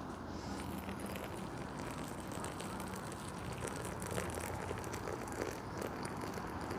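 Just-boiled water poured from a metal camping pot into a pouch of dry oats, splashing and crackling quietly onto the flakes.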